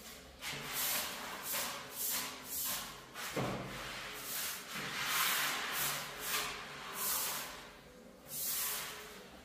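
Short straw hand broom swishing across a concrete floor in quick repeated strokes, about two a second, sweeping dust into a plastic dustpan, with a single knock about three and a half seconds in.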